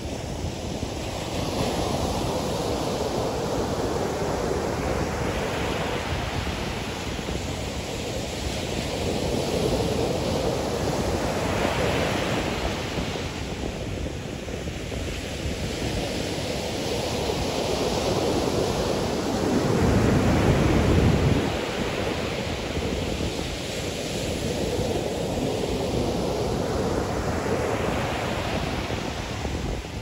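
Ocean surf breaking and washing up a sandy beach, swelling and easing every few seconds. Wind buffets the microphone, with a loud low rumble about two-thirds of the way through.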